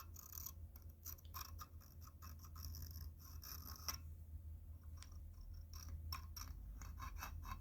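A steel scribe scratching around an intake gasket onto the inked face of a cast-iron cylinder head, marking the port outline for gasket matching. Quiet, irregular short scratching strokes over a steady low hum.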